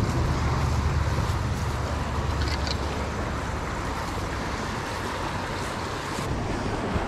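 Steady rush of a shallow, rocky trout stream running over a riffle, with a low wind rumble on the microphone that is heavier in the first few seconds.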